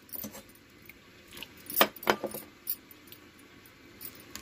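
Spoon clinking against a steel bowl several times in short, separate taps, the loudest a little under two seconds in, as a spice-and-water mix is stirred and the spoon is knocked off on the rim.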